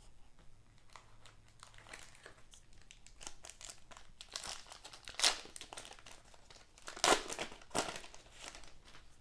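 A trading-card pack wrapper being torn open and crinkled by hand, in a run of crackles. The loudest come about five seconds in and twice more a couple of seconds later.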